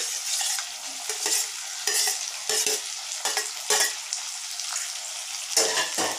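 Vegetables sizzling steadily as they fry in a clay pot. Over the sizzle, a steel spoon makes a series of short scrapes as it pushes chopped tomatoes off a steel plate into the pot; the loudest scrape comes near the end.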